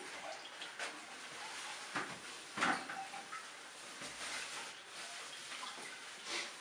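A few faint knocks and rustles of someone handling things at a toilet in a small tiled bathroom, the loudest knock about two and a half seconds in.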